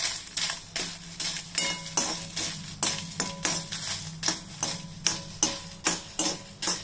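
Steel spatula scraping and stirring dry red chillies around a metal kadai as they roast, in steady strokes about two to three a second.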